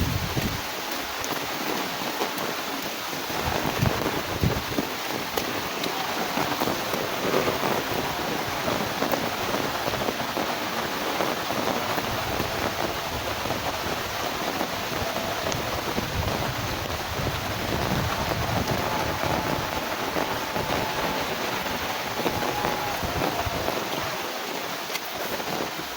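Heavy rain falling steadily, a dense even hiss, with occasional low gusts of wind.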